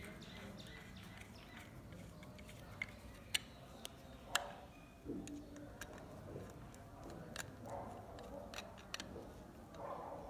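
A few light, irregular metal clicks and ticks as a spanner works a nut on an air horn's trumpet mounting.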